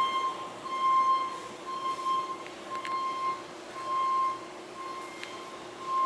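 An electronic beeper sounds a steady pitched tone for about half a second, roughly once a second, over a faint steady hum.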